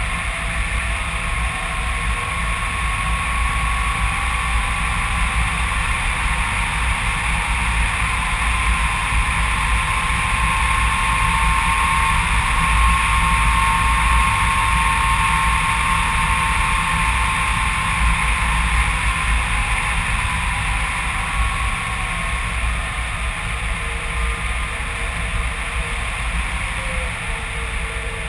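Airflow rushing over a GoPro mounted on a HobbyKing Phoenix 2 m RC glider in flight: a steady low rumble and hiss of wind, with a faint thin whine that grows a little louder toward the middle and fades as the glider comes in low over the runway.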